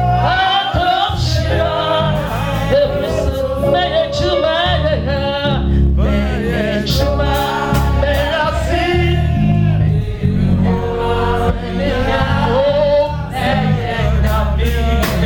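Gospel praise singing: voices sing over a band, with a stepping bass line and percussion, loud and steady throughout.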